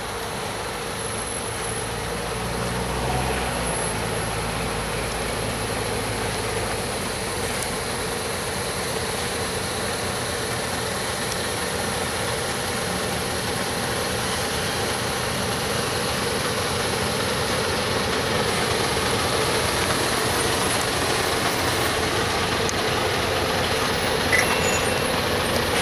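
A MAN heavy-haulage truck's diesel engine running, with the rumble of the tyres on its multi-axle trailer, growing steadily louder as the rig approaches and passes close by.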